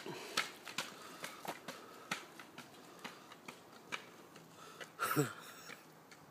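Spring stilts clacking on tarmac with each bounding stride: sharp clicks about two or three a second, growing fainter as the wearer moves away. About five seconds in, one short louder sound that falls in pitch.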